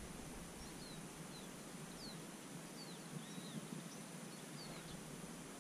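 Quiet open-wetland ambience: a faint steady hiss with several short, high bird chirps scattered through, some rising and some falling in pitch.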